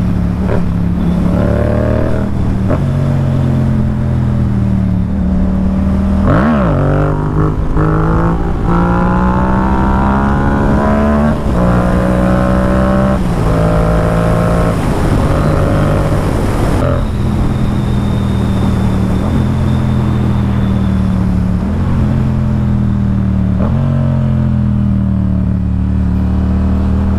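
Yamaha MT-07's 689 cc parallel-twin engine under way, its pitch climbing as it pulls through the gears several times and dropping back at each shift, then holding a steadier note toward the end.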